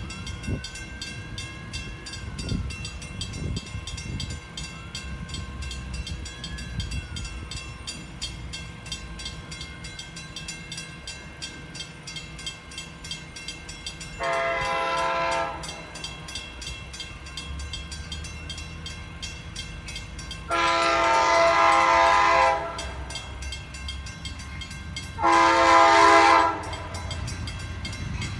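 Nathan K5LA five-chime horn of an Amtrak P42DC diesel locomotive sounding as the train approaches a grade crossing: a short blast about halfway through, a longer one about three-quarters in, and another short one near the end. It is the crossing warning sequence.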